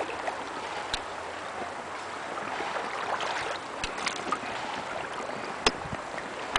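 River water rushing and splashing along an inflatable boat moving downstream, a steady hiss, with a few short sharp knocks, the loudest near the end.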